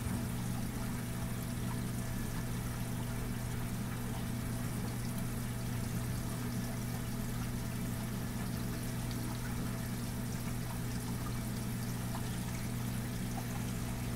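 Aquarium water trickling and splashing steadily, over a constant low hum.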